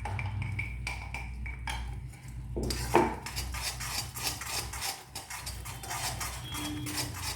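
A spoon stirring and scraping in a small iron kadai, with quick clinks against the pan, as ground spice powder is mixed into thickening jaggery syrup. The stirring gets busier about two and a half seconds in.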